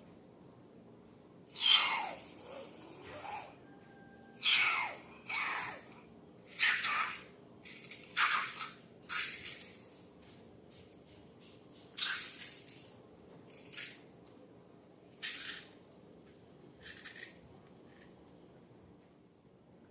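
Slime being handled: about a dozen short wet squelches and drips at irregular intervals, the first the loudest.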